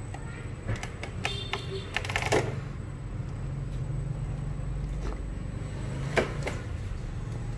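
RC Toyota FJ Cruiser scale truck driving: a steady low motor hum with scattered clicks and knocks. There is a cluster of them between about one and two and a half seconds in, and another single knock about six seconds in.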